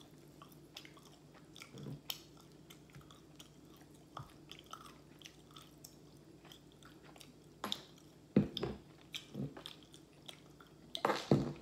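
A person chewing and biting fried chicken close to the microphone: scattered crunches and wet mouth clicks, with a few louder bites about eight seconds in and again near the end.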